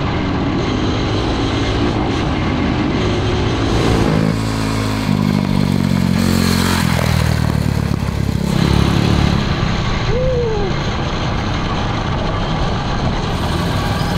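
Tillotson 225 single-cylinder racing engine in a Honda 919 street bike running under load as the bike is ridden, its pitch rising and falling with the throttle.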